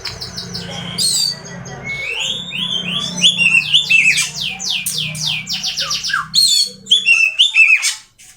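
Oriental magpie-robin (kacer) singing a loud, varied song of fast repeated notes and sweeping phrases, breaking off shortly before the end.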